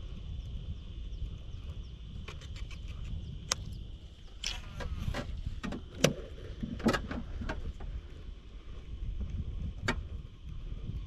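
Steady low wind rumble on the microphone, with scattered sharp knocks and clicks and a few short splashy hisses through the middle; the loudest knock comes about six seconds in.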